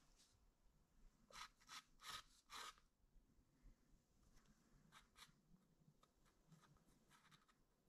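Faint pencil strokes on sketchbook paper: a few short scratchy strokes in the first three seconds, then lighter ones further apart.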